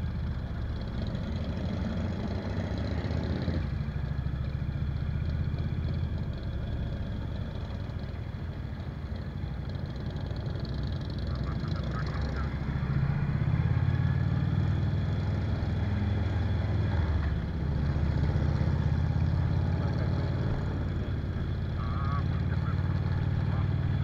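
Cruiser motorcycle engine running as the bike rides along, with a steady low exhaust note that gets louder about halfway through.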